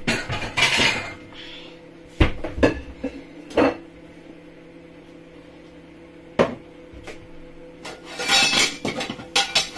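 Kitchen clatter of crockery and containers being handled on a worktop: a handful of separate clunks and knocks, then a denser run of rattling and scraping near the end.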